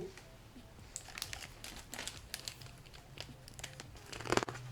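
Faint crinkling and rustling of a picture book being handled as its page is turned, with a louder rustle near the end.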